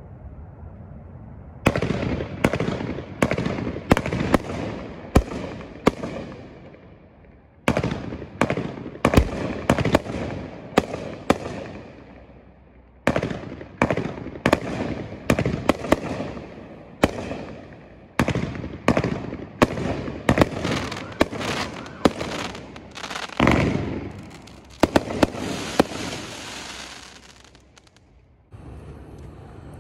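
A 20-shot, 500-gram consumer firework cake firing: a rapid series of sharp launch reports and aerial bursts in clusters with short lulls between, each burst trailing off. A dense run of rapid crackling comes near the end before it goes quiet.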